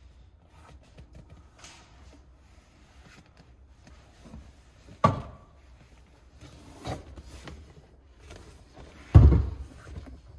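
A few separate knocks and thumps: a sharp knock about five seconds in, a smaller one near seven seconds, and the loudest, a heavy thump about nine seconds in.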